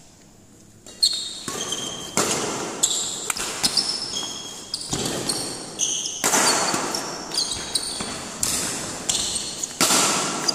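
Badminton doubles rally: sharp racket strikes on the shuttlecock, the first about a second in, mixed with short high squeaks of court shoes on the floor, echoing in the hall.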